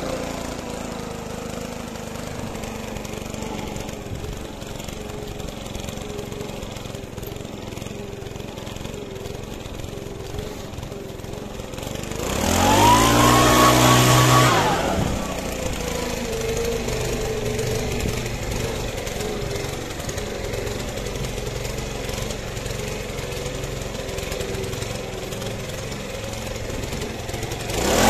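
Small petrol engine of a garden power tool running at idle, revved up briefly about halfway through and again right at the end.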